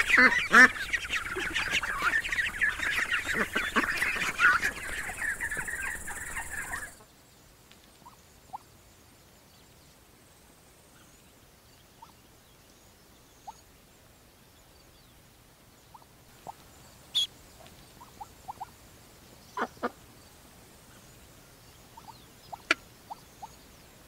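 A flock of mallards, a hen and her ducklings, calling in a dense chorus of short, rapid calls that cuts off abruptly about seven seconds in. After that it is almost quiet, with only occasional faint chirps and clicks.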